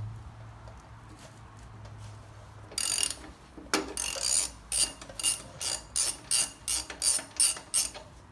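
Socket ratchet clicking as it spins a motorcycle's front axle nut off: two longer rasps about three seconds in, then a quick, even run of clicks, about three a second.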